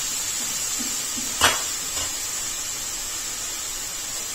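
Steady frying hiss of chopped fenugreek leaves in an aluminium kadhai. A metal ladle clanks once against the pan about a second and a half in, with a lighter tap shortly after.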